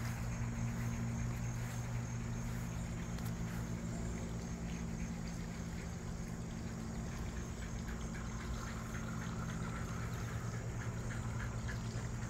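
A steady low hum with several pitches stacked on it, over a faint steady high chirring; a faint rapid ticking joins in during the second half.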